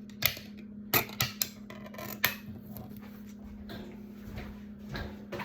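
Utensil clinking against a dish: about five sharp clicks in the first two and a half seconds, over a steady low hum.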